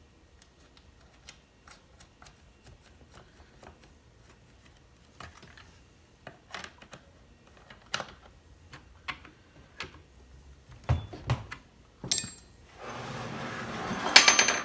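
Scattered small clicks and knocks of tools and parts being handled on a workbench. There is a low thump about eleven seconds in, then a sharp ringing click, and a louder scraping rattle for the last second and a half.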